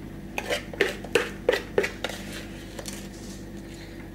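Metal spoon clinking and scraping against a mixing bowl while spooning out muffin batter: about six quick knocks in the first two seconds, then a few lighter taps.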